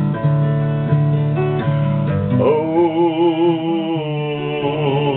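Steel-string acoustic guitar strummed in a slow ballad rhythm. About halfway through, a man's voice comes in and holds one long sung note with vibrato over the chords.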